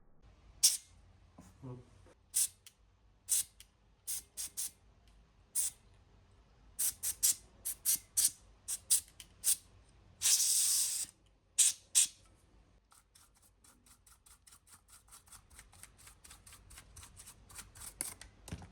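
Sharp clicks and taps of tools and parts being handled on an opened laptop during fan cleaning, with a short hiss of about a second a little past the middle. Near the end comes a fast, even run of faint ticks, about five or six a second.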